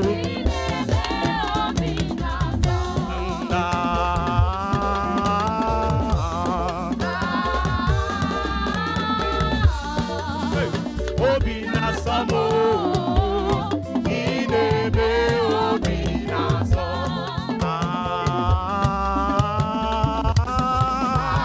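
Upbeat gospel praise music with busy drums and percussion under a wavering melody line, playing steadily throughout.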